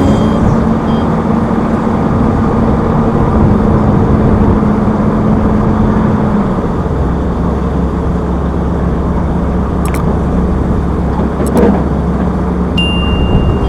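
Diesel engines of heavy earthmoving machinery running steadily, the engine note dropping to a lower hum about halfway through. A couple of sharp clicks come near the end, and a high steady beep starts just before it.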